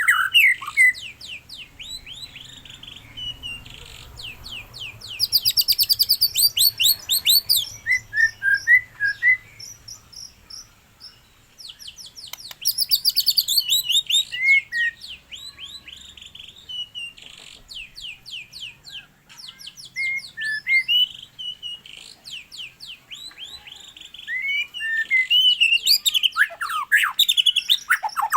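A songbird singing in loud phrases of rapid, high chirps and trills, each lasting a second or a few seconds, with short pauses between them.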